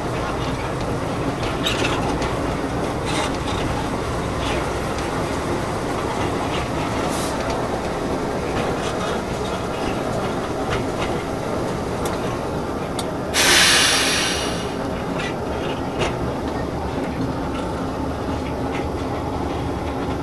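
Railway train running along the track, a steady rumble with scattered wheel clicks. About thirteen seconds in, a short loud hiss.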